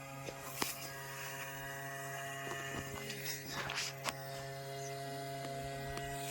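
Small electric motor of an RC boat humming steadily with a buzzing edge, with a few sharp clicks.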